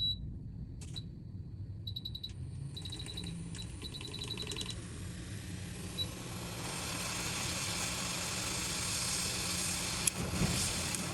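Short high electronic beeps in quick runs, like the buttons of a hot air rework station being set, then from about six seconds in a steady hiss of hot air blowing, over a constant low hum, with a couple of clicks near the end.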